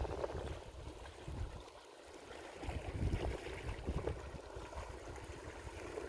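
Wind buffeting the microphone in uneven gusts, easing off briefly about two seconds in, over the wash of the sea.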